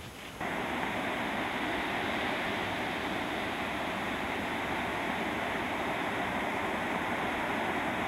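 Steady rushing roar of water released from Arrowrock Dam, pouring in jets from outlets in the concrete dam face and crashing into the pool below; it starts abruptly about half a second in.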